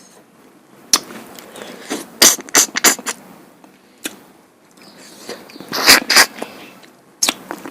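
Close-miked eating sounds: chewing duck curry and rice-flour pitha, with sharp wet mouth smacks and clicks that come in irregular clusters. The loudest clusters fall about two to three seconds in and again about six seconds in.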